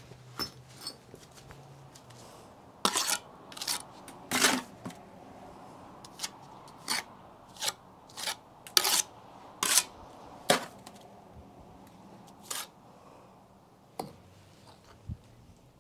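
Steel mason's trowel clacking and scraping against a brick and mortar: about fifteen sharp, irregular knocks, bunched in the middle and thinning out toward the end.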